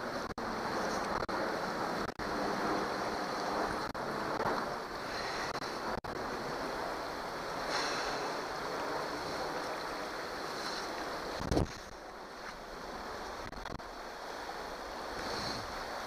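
Shallow river water rushing steadily over rocks, with a short low thump about two-thirds of the way through, after which the rush is a little quieter.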